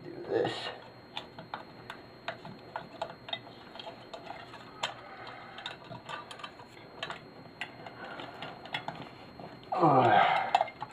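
Light, scattered clicks and small scrapes of hands pulling wire and plastic bits off a metal lamp base. A voice is heard briefly just after the start and again, louder, for about a second near the end.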